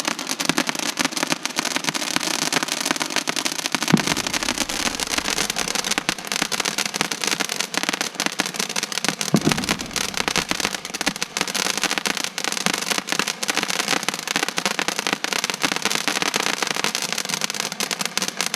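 Fireworks crackling continuously in a dense run of rapid small pops, with two louder bangs, one about four seconds in and one about nine seconds in.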